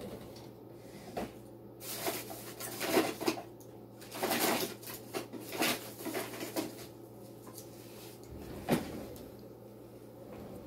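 Intermittent rustling and handling noises, with one sharp click late on, over a faint steady hum.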